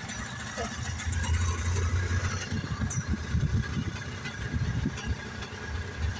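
Cars and a pickup truck driving slowly past in a line of traffic, their engines giving a low rumble that turns uneven and pulsing about halfway through.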